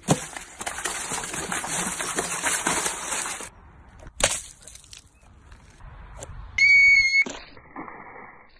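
Water balloons being handled and thrown: a dense, splashy hiss for about three and a half seconds, then one sharp smack about four seconds in. Near seven seconds comes a short high squeal.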